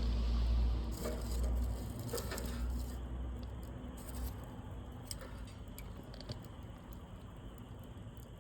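Wood fire crackling, with scattered sharp pops and snaps. A low rumble is strong at first and fades out about halfway through.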